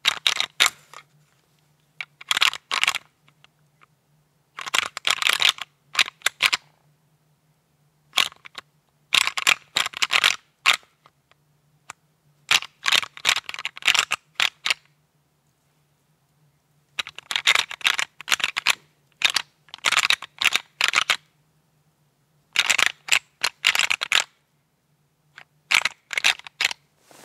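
Close rattling and scraping in bursts of about a second, every two to three seconds, over a faint steady hum.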